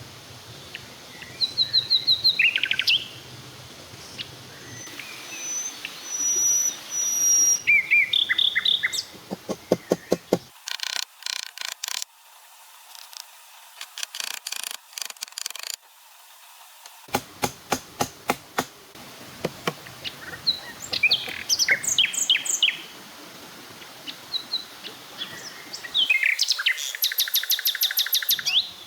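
Several wild birds calling: short high chirps, whistled notes and trills, with rapid series of clicking pulses several times, the longest near the end.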